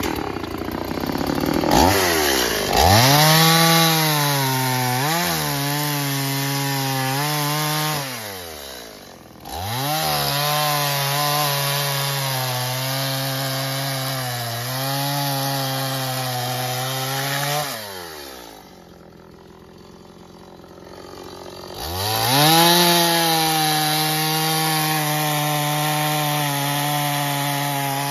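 Stihl MS 180 two-stroke chainsaw starting up and revving. It then saws through logs in three long cuts, with the engine held at a steady high pitch under load and dropping back between cuts, once briefly near eight seconds and longer near the middle.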